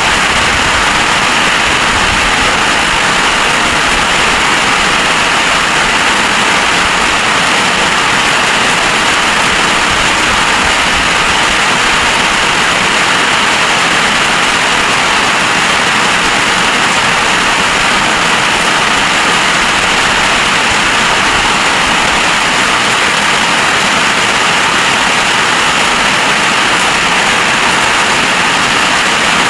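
Heavy storm rain falling, a loud steady rush with no breaks.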